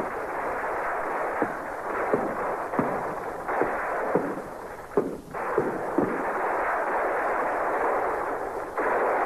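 Battle gunfire: sharp gunshots at irregular intervals, about one or two a second, over a continuous rushing din, heard through dull, band-limited old film sound.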